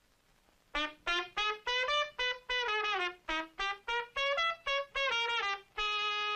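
Trumpet playing a jazzy run of quick, short notes that start about a second in, ending on one held note.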